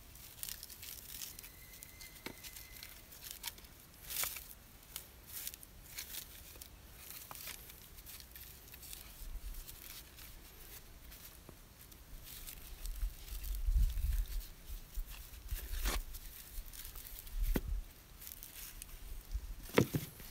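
Footsteps through dry undergrowth: irregular crackling and rustling of dry leaves and twigs, with a few low thumps in the second half.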